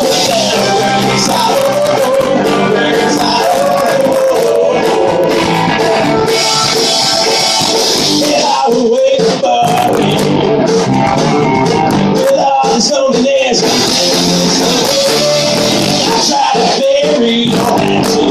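Rock band playing live: distorted electric guitars, bass and drums with a sung vocal line over them, loud and dense, with a few brief stops in the bass and drums.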